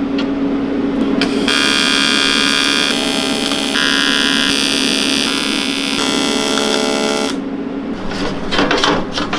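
AC TIG welding arc buzzing while tacking aluminium diamond plate. The buzz starts about a second and a half in, shifts in tone a few times, and stops about seven seconds in.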